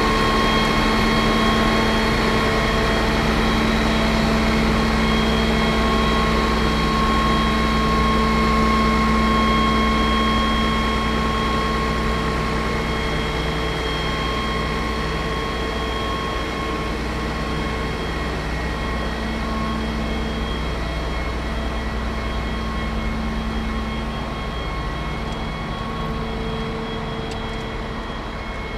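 Aerial ladder truck's engine and hydraulic drive running steadily as the ladder raises the basket, with several steady whining tones. It eases off a little after about ten seconds.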